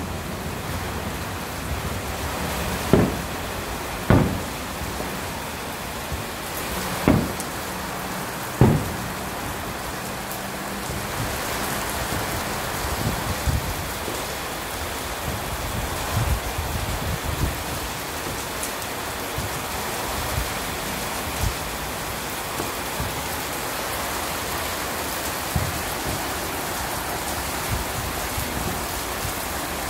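Heavy rain falling steadily, with four distant firework bangs in the first nine seconds.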